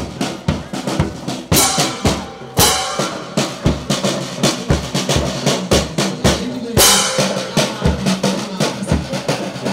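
Marching drum corps playing on the move: bass drum and snare drums beating a brisk rhythm, with hand cymbals clashed a few times, about one and a half, two and a half and seven seconds in.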